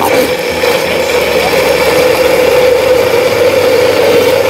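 Electric countertop blender switched on and running at a steady speed, its motor giving a loud, even whine as it purées onions, garlic, peppers and oil into a seasoning paste.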